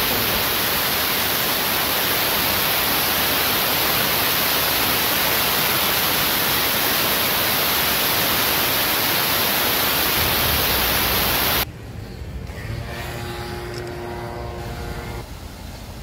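A loud, steady hiss of even noise that cuts off suddenly about two-thirds of the way through. After it comes a quieter background with a held tone lasting a couple of seconds.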